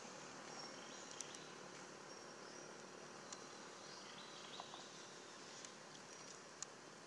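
Faint outdoor ambience: a steady hiss with short, high-pitched chirps about once a second and a few light clicks.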